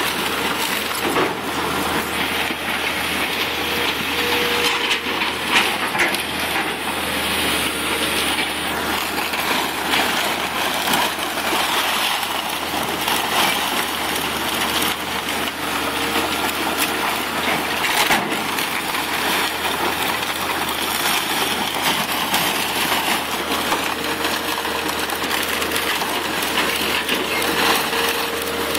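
Hydraulic excavators working a demolition heap: a steady diesel engine drone under continual crunching, cracking and clattering of brick and timber debris being broken and dragged.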